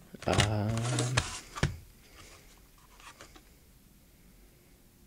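A man's short hum of about a second, followed by a sharp click and a few faint handling taps.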